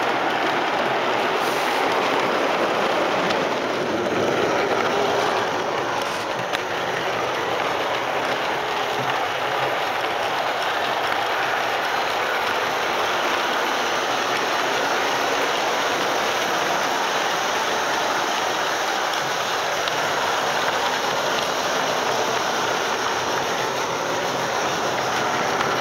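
O gauge model trains running on the layout's track: steady, even running noise of wheels on the rails, with no pause or change.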